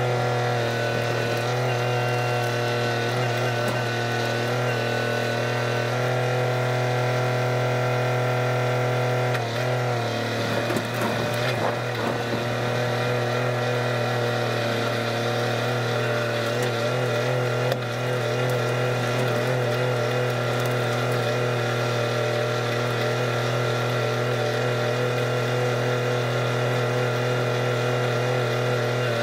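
Kubota tractor's diesel engine running steadily under way. Around ten seconds in the engine note dips slightly, with a couple of seconds of crackling and knocking as the front-end grapple takes up brush.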